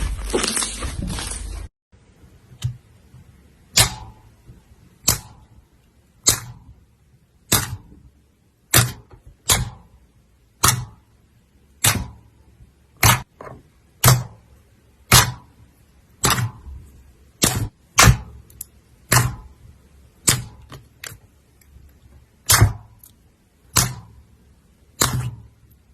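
Crunchy slime being worked with dense, continuous crunching that stops abruptly under two seconds in. It is followed by a run of single sharp cracks, roughly one a second, as a hardened crunchy coating is broken piece by piece.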